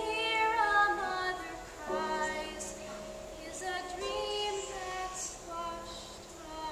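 A woman singing a slow song with held notes over piano accompaniment.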